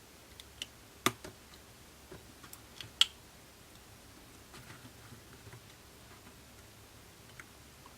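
Small sharp clicks and taps as iPhone 6s flex cable connectors are pressed onto their sockets on the logic board. The two loudest clicks come about a second in and about three seconds in, with a few fainter taps in between.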